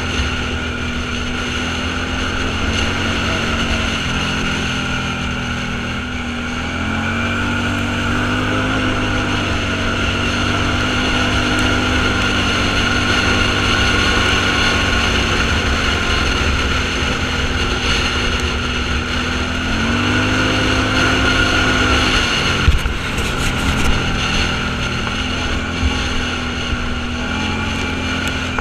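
Off-road vehicle's engine running steadily under way, its pitch rising a few times with changes in engine speed, with wind noise on the microphone. A few sharp knocks come about two-thirds of the way through.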